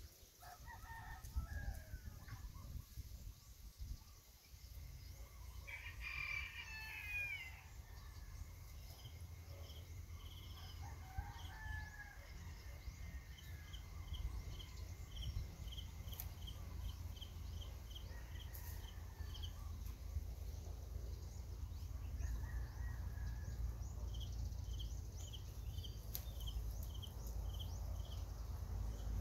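Rooster crowing about six seconds in, with shorter chicken calls scattered through, over a steady low rumble. A quick run of short high pips, about two a second, comes in the middle and again near the end.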